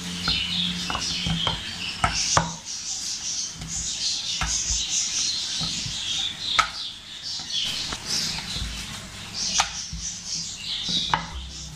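Wooden rolling pin rolling maida dough out on a round rolling board, with a dozen or so irregular knocks and clicks as the pin and board bump together. Birds chirp steadily in the background.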